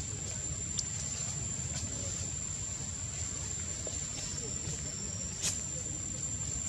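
Outdoor background: a steady low rumble under a continuous high-pitched whine, with a few faint ticks, the clearest about five and a half seconds in.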